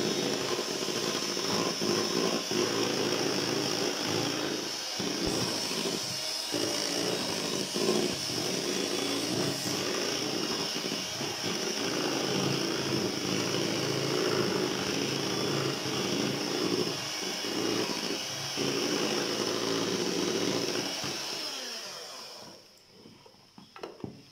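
Electric hand mixer running steadily, its beaters whipping a thick cream mixture in a bowl, switched off near the end.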